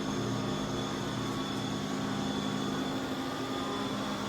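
Steady hum of running machine-shop equipment: a low drone with a faint high whine over it, unchanging throughout.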